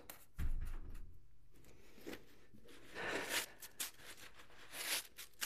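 A new Gore-Tex hiking boot being handled: a dull thump about half a second in, then bursts of fabric rustling and scraping as the boot is pulled open to be put on.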